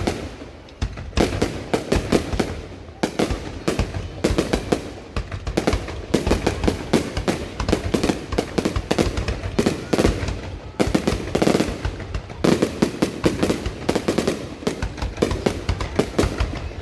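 Fireworks going off: a dense, continuous run of bangs and crackles in rapid clusters, with brief lulls about 3 s and 11 s in.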